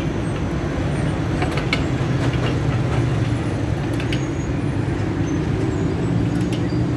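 Steady low mechanical hum with scattered sharp clicks and knocks.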